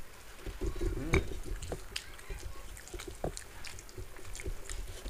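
Two people eating rice and curries with their hands: wet chewing and mouth sounds, and fingers mixing and squishing food on steel plates, heard as irregular small clicks and soft thumps.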